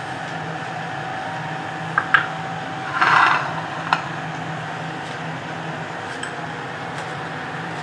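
A steady electrical hum with a few sharp clicks and a brief scrape about three seconds in, typical of dishes and utensils being handled in a kitchen.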